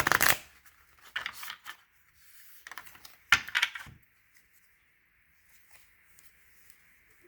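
A deck of tarot cards being shuffled: four quick bursts of fluttering card clicks in the first four seconds, then it stops.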